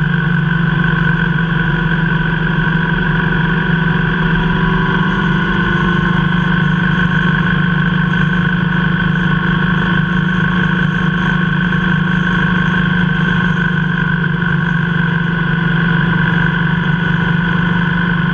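Motorcycle engine running steadily at cruising speed, a constant drone mixed with wind noise.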